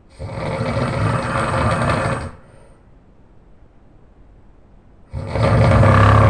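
A man snoring very loudly: two long, rough snores about five seconds apart, each lasting about two seconds, with a lull between them.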